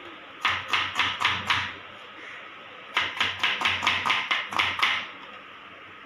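Kitchen knife chopping onion on a plastic cutting board: a quick run of about five knocks, a pause, then a longer run of about ten knocks, roughly five a second.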